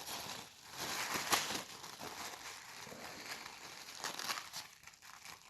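Crinkly wrapping rustling and crackling irregularly as fingers knead and mash a lump of putty through it.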